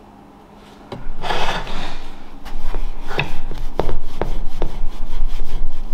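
Steel wool rubbed over a deer skull coated in cured black metal wax, lightly scraping away the excess wax. A scratchy rubbing starts about a second in, with sharp scratching strokes coming thick and fast through the second half.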